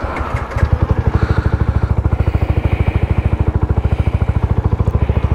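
Freshly rebuilt Yamaha Y15ZR's 150 cc single-cylinder four-stroke engine idling, with an even, steady beat of about a dozen pulses a second.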